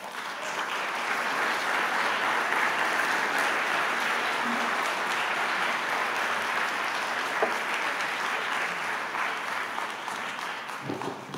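Audience applauding, swelling over the first second or so, holding steady, then thinning out near the end.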